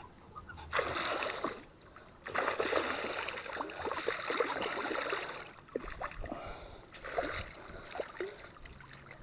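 A hooked bass thrashing at the water's surface while being played on the line: a short burst of splashing about a second in, a longer spell of splashing from about two to five seconds, then a few smaller splashes.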